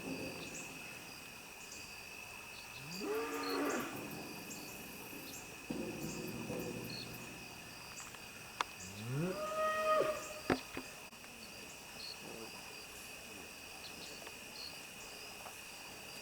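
Beef cattle mooing: two drawn-out moos that rise in pitch, about three seconds in and again near ten seconds, with a lower, shorter moo between them. Crickets chirp steadily behind.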